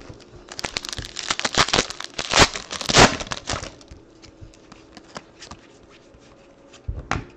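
Trading card pack wrapper of 2015 Panini Prestige football being torn open and crinkled, a dense crackly rustle for about three seconds that peaks near its end. Then quieter, with a few light ticks as the cards are handled and one brief louder rustle near the end.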